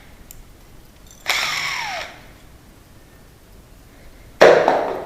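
Power drill run in two short bursts, the first winding down with a falling whine as the trigger is let go.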